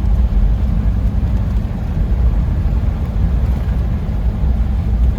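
Toyota LandCruiser 76's V8 turbo-diesel working hard as the vehicle ploughs through a flooded mud hole with its diff locks engaged: a loud, steady, deep rumble of engine and tyres in mud and water.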